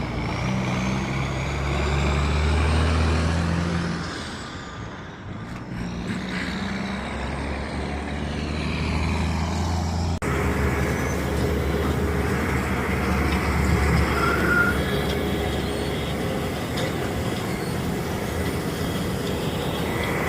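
Heavy diesel machinery running steadily, a deep engine drone with a thin whine that rises and falls, changing abruptly about ten seconds in.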